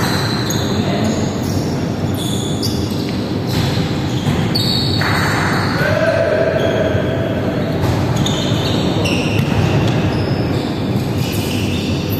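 Indoor volleyball game in an echoing sports hall: players calling out and chatting, the ball being struck and landing, and many short high squeaks of shoes on the court floor.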